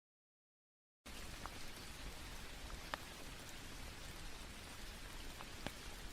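Steady rain falling, an even hiss with a few sharp drop clicks, starting about a second in after a moment of complete silence.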